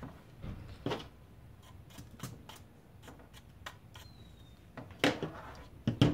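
Scattered light clicks and knocks, about a dozen, with louder knocks about five and six seconds in.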